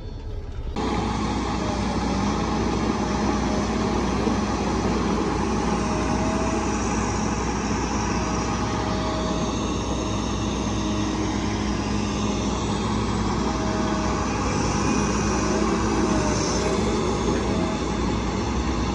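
Heavy diesel engines of a log truck and a log loader running steadily, with a faint wavering whine over the engine sound.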